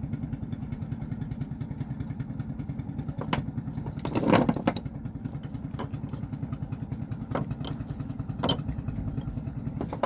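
Engine of a wooden river fishing boat running steadily with a quick, even putt. A few separate knocks and clatters sound over it, the loudest about four seconds in.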